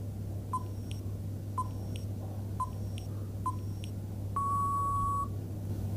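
Countdown timer sound effect: four short beeps about a second apart, then one longer beep lasting about a second, over a faint steady hum.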